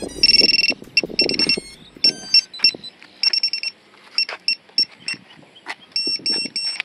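Electronic beeper on FPV quadcopter gear sounding a series of high-pitched beeps: one longer beep, then groups of three or four short beeps and a brief run of stepped tones, with scattered clicks between.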